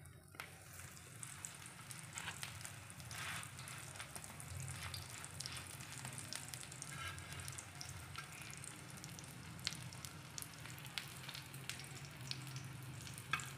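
Potato kebab patties shallow-frying in oil on a flat iron tawa: steady sizzling dotted with many small crackles and pops.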